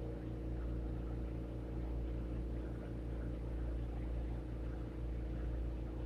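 Glassworking bench torch burning steadily, a constant low hum with a faint hiss, while a thin glass rod is heated in the flame.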